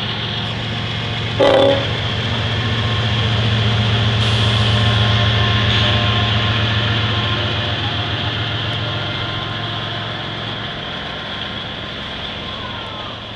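Diesel locomotives of a freight train passing at close range: a steady low engine drone that builds to its loudest about five seconds in and then slowly eases off, over the rolling noise of the wheels on the rails. A brief, loud burst comes about a second and a half in.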